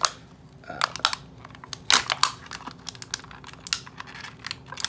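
Small hard-plastic doll accessories and a clear plastic packaging tray being handled: irregular sharp clicks and taps.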